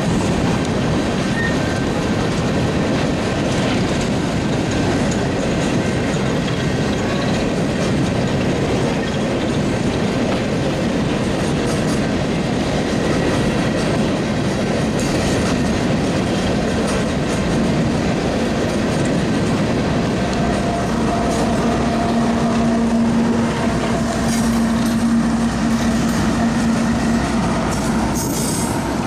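A loaded freight train's cars roll past with a steady rumble and clatter of wheels on the rails. A steady hum joins in during the last third as a Union Pacific diesel locomotive in the train comes up.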